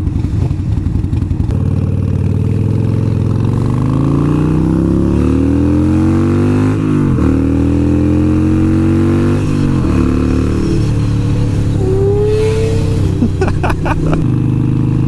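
Harley-Davidson V-twin motorcycle engine accelerating through the gears: the pitch climbs steadily for several seconds, drops at two upshifts a few seconds apart, then holds steady while cruising.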